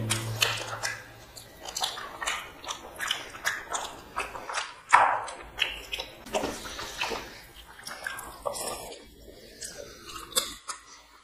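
Close-up chewing and mouth smacks of people eating mutton biryani, a steady run of short smacking clicks several times a second that thins out and grows quieter near the end.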